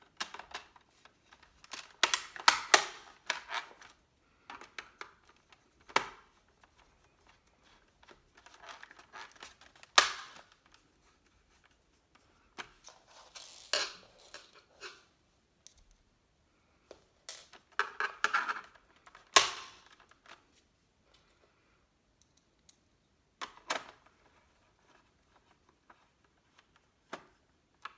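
Hands working on the underside of a Samsung R525 notebook's memory bay: sharp clicks and snaps every few seconds, some in quick clusters, with rubbing and scraping in between.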